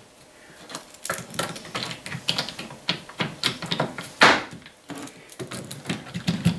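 Irregular clicking and light knocking of MDF jig parts being handled and fitted together by hand, with a louder knock about four seconds in.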